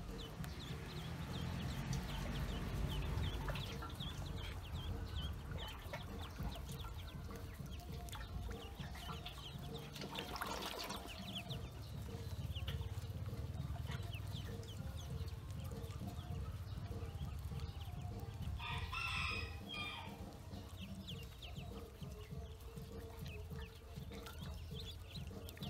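Many ducklings peeping, with a rapid scatter of short high calls throughout. One longer, louder call stands out about three-quarters of the way through.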